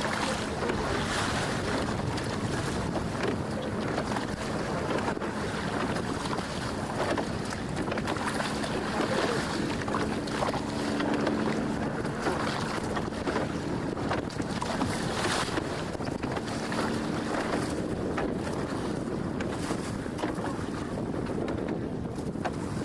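Wind buffeting the microphone aboard an open boat on choppy water, a steady rushing noise with gusts now and then. A faint low steady hum, like a distant motor, comes and goes beneath it.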